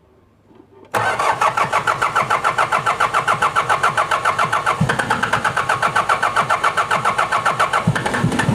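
Mitsubishi 4D56 four-cylinder diesel engine cranked by its starter motor, starting abruptly about a second in as a fast, even pulsing of compression strokes. The hard-starting engine turns over without catching, even after the glow plugs were heated by direct wiring.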